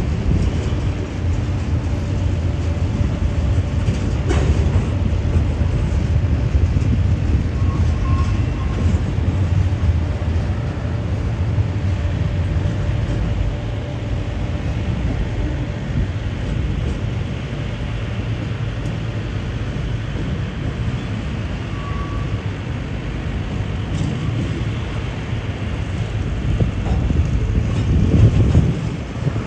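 BNSF double-stack intermodal freight train rolling past, a steady loud rumble of wheels on rail with a few faint clicks. The rumble swells briefly near the end and then drops off.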